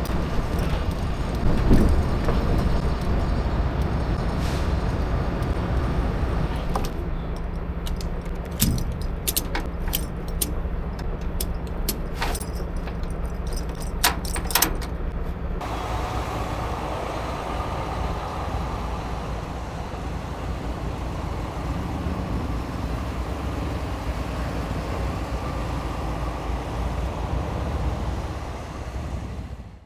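Diesel tractor-trailer engines rumbling steadily as a convoy of trucks moves off, with a spell of sharp clicks and rattles about a third of the way through.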